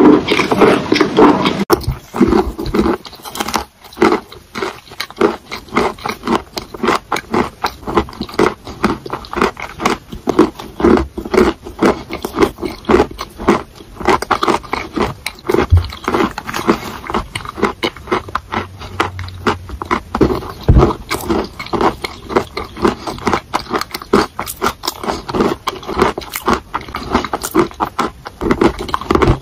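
Close-miked chewing of chalk: a steady run of crisp crunches and mouth sounds, many to the second.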